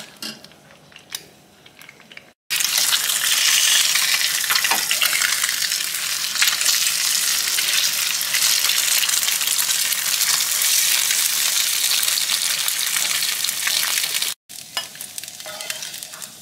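Eggs frying in hot oil in a nonstick wok: a dense, crackling sizzle, with the spatula working through them as they are turned and broken up. The sizzle starts abruptly about two and a half seconds in, after a quieter stretch with a few clicks, and drops to a softer sizzle near the end.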